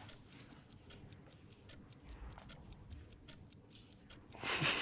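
Steady, rapid clock-style ticking of a quiz answer timer counting down while the players think, about four to five ticks a second. A short burst of noise comes near the end.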